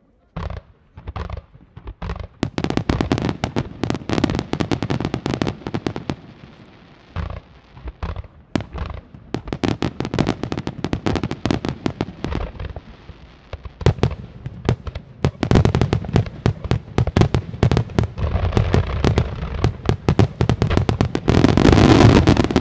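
Aerial firework shells bursting in rapid volleys of sharp bangs, building to a dense, loud barrage near the end.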